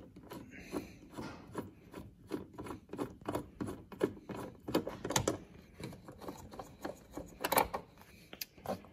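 A Torx screwdriver turning set screws out of a plastic tail-light mount: a run of small irregular clicks and scrapes, a few louder ones about five and seven and a half seconds in.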